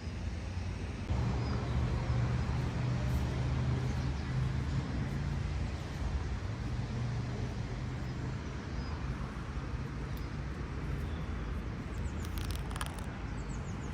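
A motor vehicle's engine running nearby: a steady low hum that starts about a second in and fades after about eleven seconds, over general outdoor noise, with a few brief high clicks near the end.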